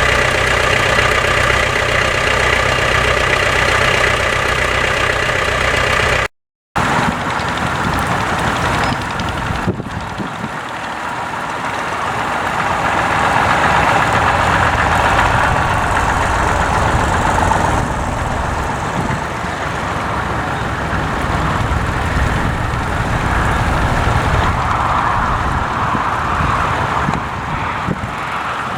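Vintage tractor engines running. A steady, even engine note for about six seconds, then after a brief cut a rougher engine sound that rises and falls.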